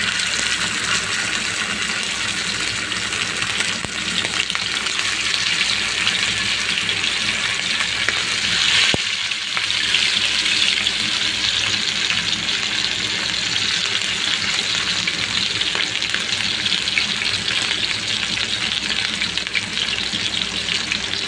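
Masala-coated sardines sizzling in hot oil in a dosa pan as more fish are laid in: a steady frying hiss, with a single click about nine seconds in.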